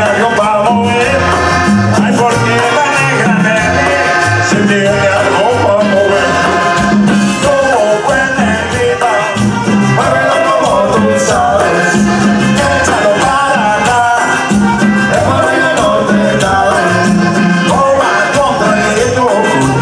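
Live cumbia band playing, led by two button accordions, over a steady bass and percussion beat.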